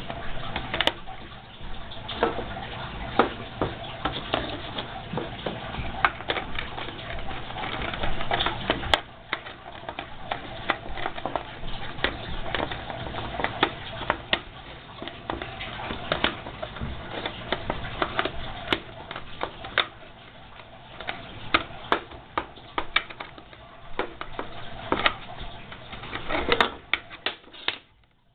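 Hard plastic parts of a Wodent Wheel exercise wheel being handled, with a steady run of irregular clicks, knocks and rattles. The sound cuts off suddenly near the end.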